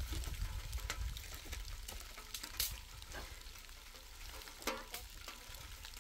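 Dry sticks and twigs snapping and cracking as they are broken and gathered by hand: several sharp snaps over a faint crackling hiss.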